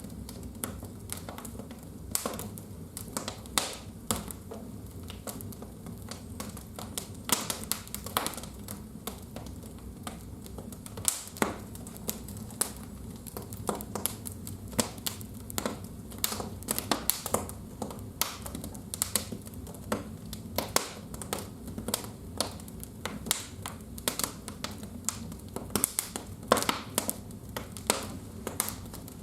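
Wood fire crackling in a fireplace, with irregular sharp pops and snaps, sometimes several a second.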